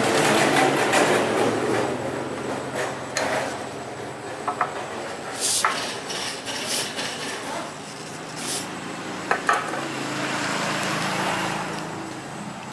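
Metal repair work: a steady low machine hum with a series of short metallic knocks and clanks spread through, plus a few brief louder noisy bursts.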